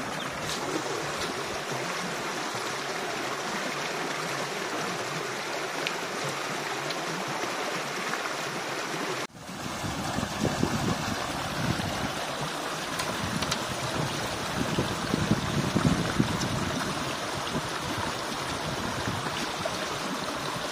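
Shallow running stream water flowing and splashing around a perforated aluminium colander as cut fish pieces are washed and rubbed by hand in it. The sound cuts out for a moment about nine seconds in, then comes back with louder, uneven splashing and sloshing for several seconds.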